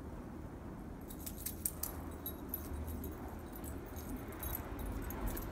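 Light metallic jingling of small metal pieces, a rapid, irregular run of tiny clinks that starts about a second in and continues, over a low steady rumble.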